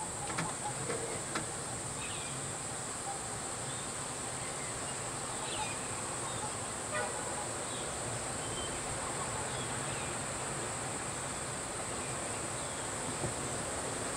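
Steady high-pitched drone of insects, a cicada-like chorus, over a faint low rumble.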